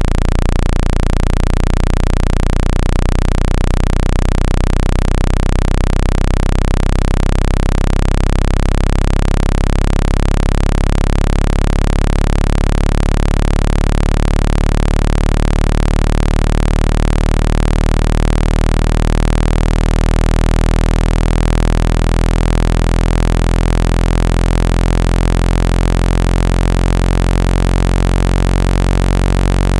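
Synthesized speaker-cleaning tone: a loud, steady, deep buzzing tone with many overtones over a hiss, played to shake dust out of a phone speaker's grille.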